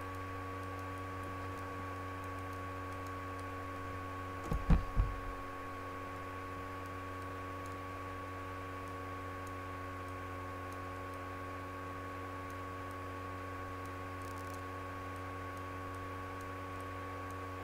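Steady electrical hum: a low drone with several steady higher tones over it, with a short cluster of low thumps about four and a half seconds in.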